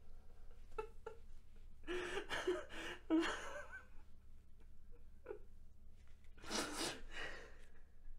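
A man sobbing: short catching whimpers, a run of shaky crying breaths about two seconds in, and one loud sharp breath near the end, over a faint low hum.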